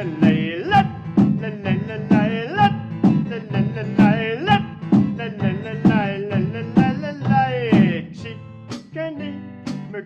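Music: a male voice singing a wordless melody over steady box-drum beats, about two hits a second. The singing stops near the end, leaving sparser drum hits.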